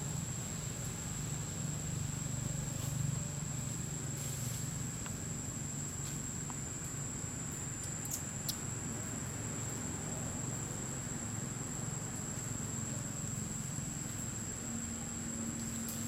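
Steady high-pitched insect drone with a low hum underneath, and a few faint clicks about halfway through.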